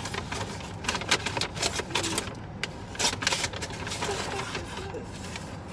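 Takeout bag and food packaging rustling and crinkling in irregular bursts as someone rummages through it.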